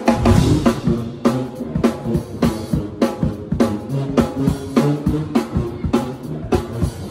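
Drum kit played hard and fast: a dense run of snare and tom hits over kick drum, with loud hits every half second or so.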